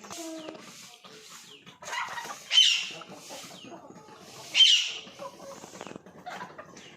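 Aseel and desi chickens clucking and calling, with two loud, short high-pitched squawks about two seconds apart near the middle.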